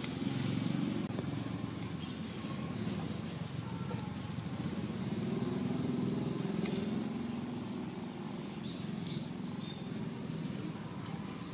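Low engine rumble of passing motor vehicles, swelling about a second in and again around six seconds, then easing off. A brief high chirp sounds about four seconds in.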